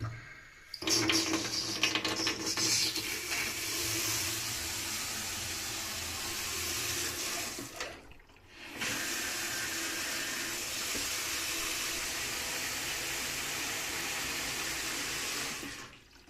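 Water running hard from a tap just after the supply is turned back on following a valve installation. It is louder and uneven for the first couple of seconds, then runs steadily, stopping for under a second about halfway through before it runs again.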